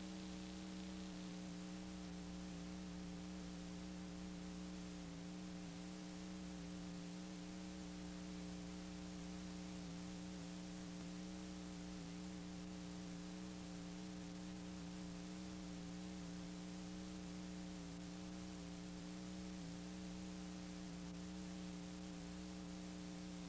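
Steady electrical hum with tape hiss from the blank end of an old videotape being played back: one low buzzing tone with several fainter overtones above it, and no programme sound.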